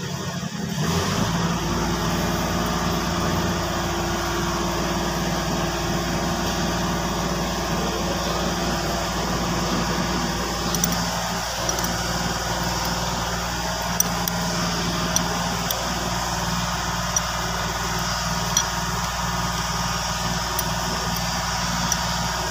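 An engine idling steadily, starting about a second in, with scattered light clicks in the second half.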